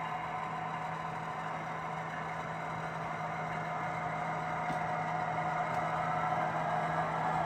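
HO scale model diesel locomotives' sound decoders idling through their small speakers, a steady engine hum with a constant low drone, slowly growing a little louder toward the end.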